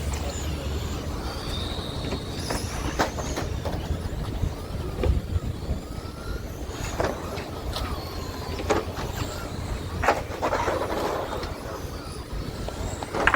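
Several 2WD short-course RC trucks racing on asphalt, their motors whining up and down in pitch, with sharp clacks scattered through and a low rumble underneath.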